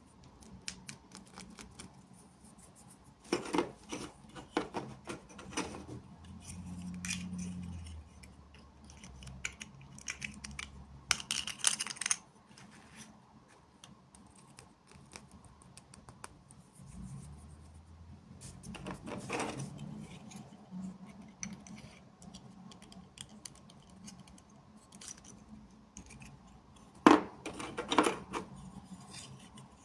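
Small plastic toy pieces and packaging being handled: several bursts of clicking, tapping and rustling, with a brief low hum partway through and the loudest pair of sharp clacks near the end.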